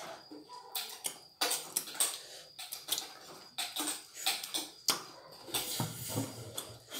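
Close-up eating sounds from chicken wings being eaten by hand: irregular wet clicks of lips smacking and chewing, with a few sharper snaps.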